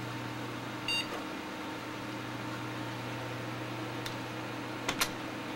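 Steady hum of a desktop PC's fans, with one short high-pitched beep from the PC speaker about a second in: the single POST beep a BIOS gives when the power-on self-test passes on reboot. A single sharp click follows near the end.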